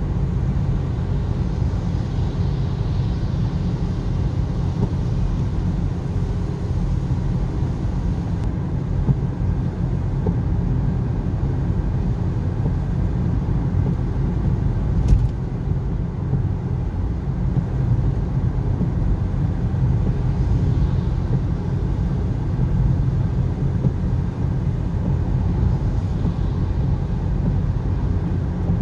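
Steady road and engine rumble inside a car's cabin at motorway speed, tyres running on a wet road surface. A single short click about halfway through.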